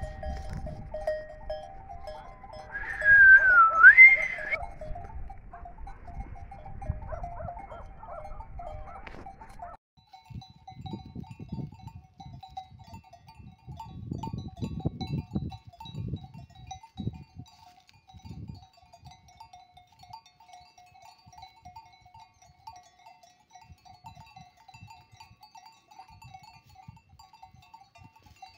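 Flock of Merinolandschaf sheep grazing, with one loud, high bleat about three seconds in. Under it are a faint steady jingle and soft low rustling.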